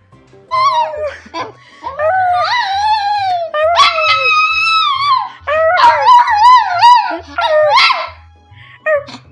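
A dog howling in several long calls that rise and fall in pitch, over background music with a steady bass line.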